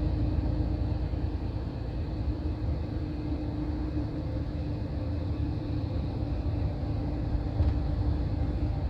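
Greyhound coach cruising on the freeway, heard from inside the passenger cabin: a steady low rumble of engine and road noise with a faint steady hum.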